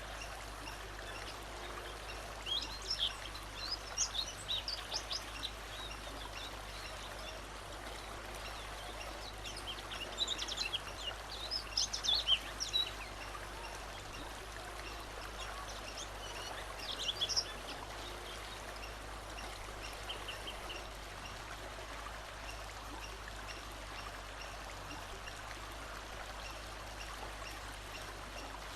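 A songbird singing several short phrases of quick, high notes, with pauses between them, over a steady rush of running water.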